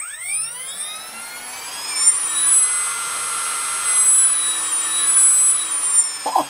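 Water-cooled brushless RC boat motor spinning with no load on the bench: a high-pitched electric whine that rises as it spins up over about two seconds, holds high with slight wavers in speed, then drops and cuts off just before the end.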